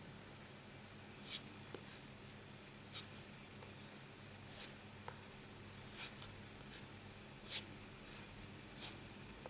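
Buck knife blade stroked along a leather strop loaded with white polishing compound. Six faint, brief brushing swishes come about every one and a half seconds. This is the stropping stage that polishes the 3,000-grit stone edge to a mirror.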